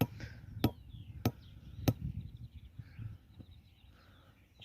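Four even blows about 0.6 s apart, driving metal pegs into the ground to anchor a bird net, stopping about two seconds in.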